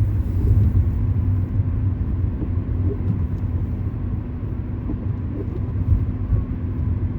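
Car cabin noise while driving: a steady low rumble of engine and tyres on the road, with a faint steady hum.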